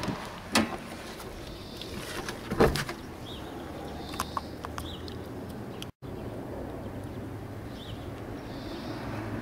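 A car bonnet's safety catch is released by hand with a sharp click. About two seconds later there is a louder clunk as the bonnet is raised, followed by a few small ticks. A steady low hum runs underneath.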